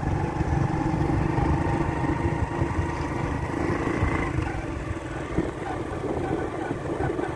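Motorcycle engine running while riding, its note easing off slightly a little past halfway.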